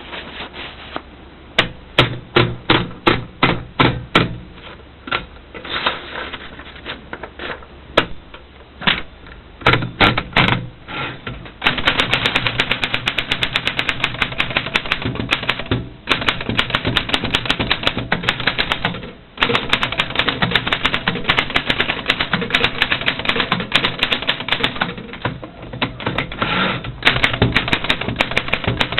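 Smith Premier Model 40 typewriter being typed on: separate key strikes a few a second at first, then from about the middle a fast, continuous clatter of keystrokes broken by two short pauses.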